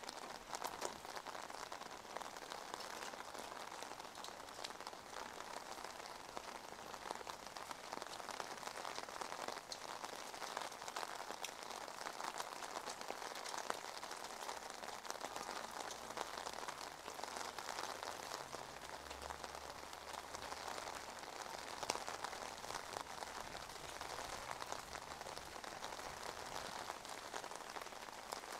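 Steady rain falling on wet asphalt, with many small drop ticks.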